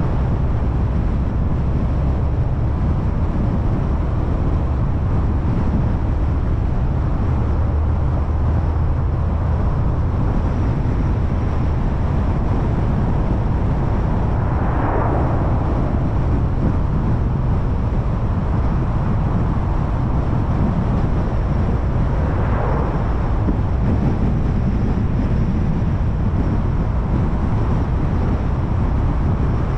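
Steady road noise of a car driving: a low rumble of tyres and engine. A brief swell rises and falls about halfway through as an oncoming car passes, and another comes about three quarters of the way in.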